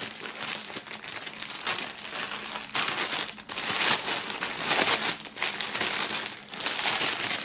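Clear plastic bag crinkling and rustling as hands handle it and lift its open flap, with a few brief pauses.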